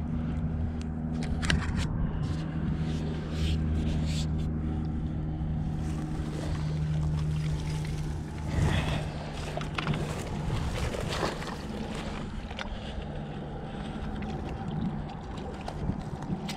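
A hooked catfish splashing at the surface once, about eight and a half seconds in, as it is drawn to a landing net, with short clicks and grass rustling. Under it runs a steady low engine hum, stronger in the first half.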